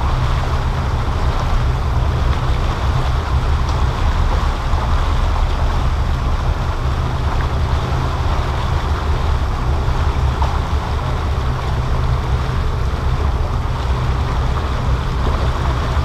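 Boat engine running steadily underway, with water noise and wind buffeting the microphone.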